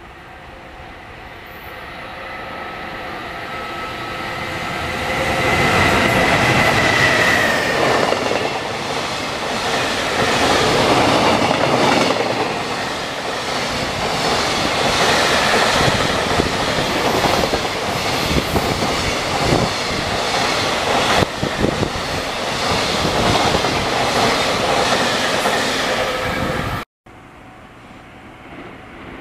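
Freight train of container wagons approaching and passing through at speed, building up over the first few seconds with a brief high whine, then a long run of wheels clacking over the rail joints. The sound cuts off abruptly near the end.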